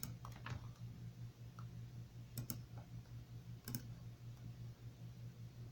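Faint clicking at a computer: a few single clicks near the start, then two quick double clicks about a second and a half apart, over a steady low hum.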